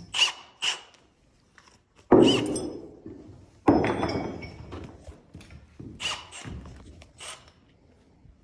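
Thunks and clicks of tools being handled, not a drill running: a couple of light clicks, then two loud thunks about two and three and a half seconds in, each ringing briefly as it fades, and a few lighter knocks later on.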